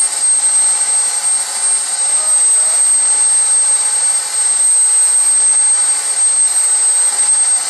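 JetCat P60 model jet turbine running steadily during its test run: a loud, high-pitched whine over a rushing hiss, its pitch dipping slightly a few times.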